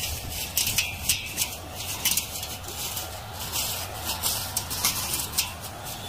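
Engine brush cutter with a nylon trimmer line running under a steady low hum, the spinning line cutting grass with rapid, irregular ticking and rattling as it strikes the stalks.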